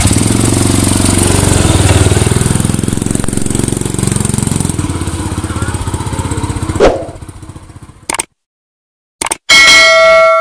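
Honda C70's small single-cylinder four-stroke engine, converted to automatic, running as the scooter pulls away, its sound fading out as it moves off, with a short loud knock about seven seconds in. Near the end, after a brief silence, a bell-like chime rings.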